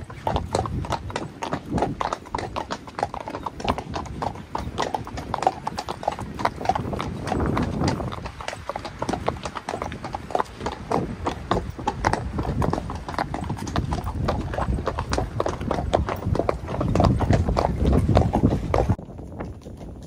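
Hooves of Friesian horses clip-clopping at a walk on a tarmac lane, several horses' steps overlapping, with wind rumbling on the microphone. The hoofbeats stop abruptly about a second before the end.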